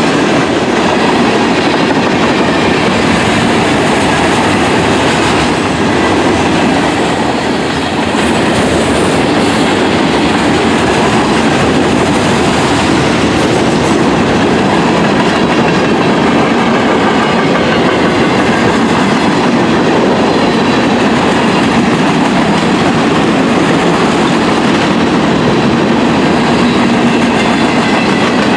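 Freight train cars rolling past close by: a loud, steady clatter and rumble of steel wheels on the rails.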